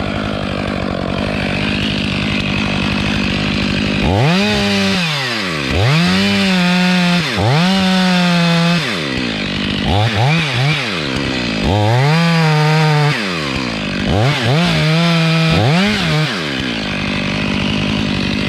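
A two-stroke chainsaw is revved up again and again, about eight times in a row. Each rev climbs steeply in pitch, holds for up to a second or so, then drops back. A steady engine drone runs before the first rev and after the last.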